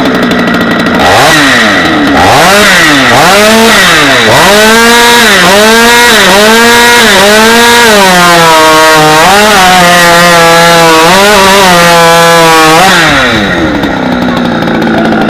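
Stock-class two-stroke competition chainsaw at full throttle. Its pitch rises and dips about once a second, then holds at a steadier, lower note for several seconds before falling back toward idle near the end.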